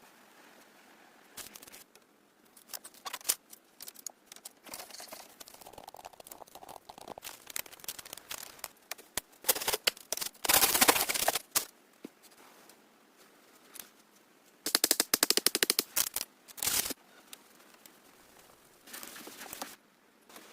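Rapid clicking and tapping in short bursts. Two dense rattling runs, about ten and fifteen seconds in, are the loudest, with scattered lighter taps between them.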